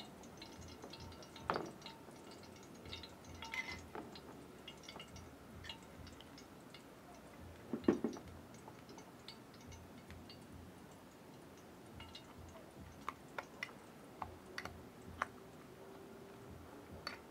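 Faint, scattered pops and crackles from a piece of seasoning sizzling in oil heating in a pan: the Jamaican-style test of whether the oil is hot enough to fry egg. A louder single knock comes about eight seconds in.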